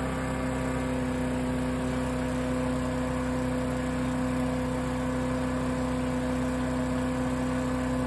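Mini wood chipper's small four-stroke gas engine running steadily at full speed with no wood being fed.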